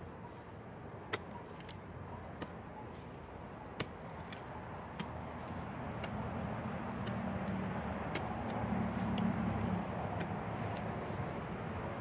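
A hand trowel digging into dry, clumpy soil, with scattered sharp clicks and scrapes as the blade strikes dirt clods. A low steady rumble swells in the second half.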